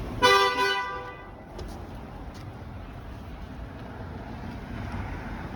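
A car horn sounds once, a short steady honk of well under a second, about a quarter second in. After it comes a steady low rumble of background noise.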